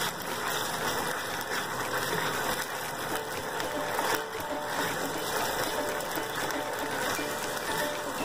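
Ground onion and ginger-garlic paste sizzling and crackling steadily in plenty of hot oil in an aluminium pot, stirred with a wooden spoon.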